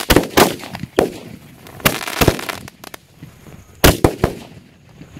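Asok Fireworks "Rang Barat" 240-shot multicolour repeater cake firing its shots: about seven sharp bangs, mostly in pairs, each with a short ringing tail.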